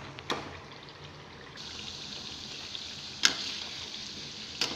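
Chili, garlic and lemongrass frying in oil in a wok on low heat, sizzling steadily and growing brighter about a second and a half in. A metal spoon stirring the mixture knocks against the pan three times.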